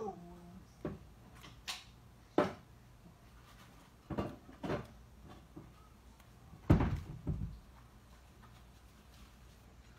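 Scattered knocks and clunks of kitchen clatter, about seven short hits at uneven intervals, the loudest a double knock about two-thirds of the way through, over a faint low steady hum.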